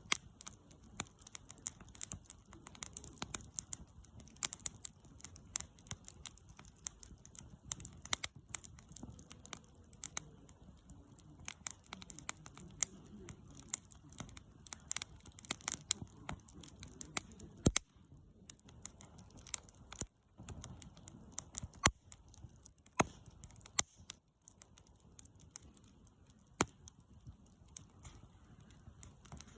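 Wood campfire crackling, with frequent irregular sharp pops and snaps, a few much louder than the rest.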